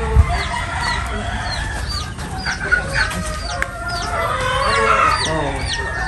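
Many game chickens in a breeding shed clucking and crowing, with high chirps repeating throughout.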